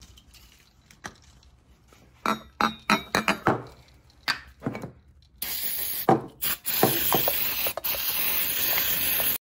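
A few metallic clinks, then brake cleaner sprayed from an aerosol can onto steel bolts in a metal parts tray: a long steady hiss with a couple of brief breaks, cutting off abruptly near the end. The spray is degreasing the bolts before thread locker goes on.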